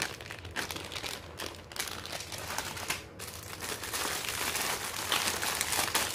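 Clear plastic packaging crinkling and rustling as hands handle and unwrap it. The sound gets denser and a little louder in the second half.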